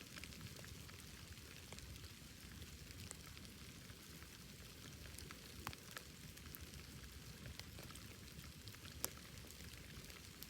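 Wood bonfire crackling faintly: a steady low hiss scattered with small pops, with two sharper snaps, one about halfway through and one near the end.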